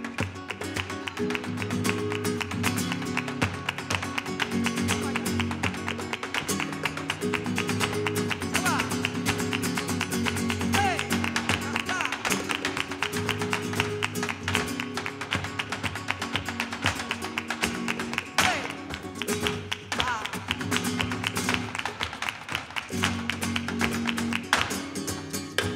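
Flamenco music with acoustic guitar and sustained low string notes, likely from the cello. Over it, the dancer's heeled flamenco shoes strike the stage in rapid zapateado footwork, with dense, quick taps throughout.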